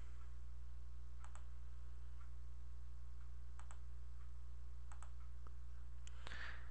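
Computer mouse clicking a few times, each click a quick double tick of press and release, spaced a second or more apart over a steady low hum. A short breath comes near the end.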